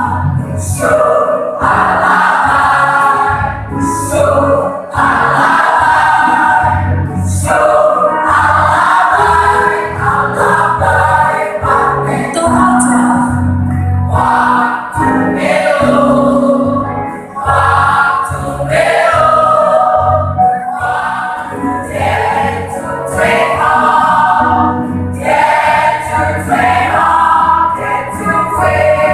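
Combined church choir singing a Christmas song, many voices together in continuous phrases.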